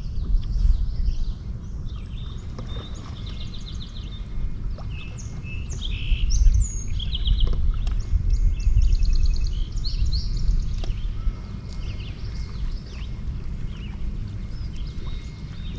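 Several birds chirping and trilling, with quick runs of repeated notes, over a steady low rumble.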